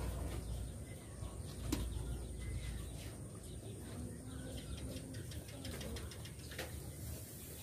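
Faint background rumble with a few soft clicks and faint bird calls.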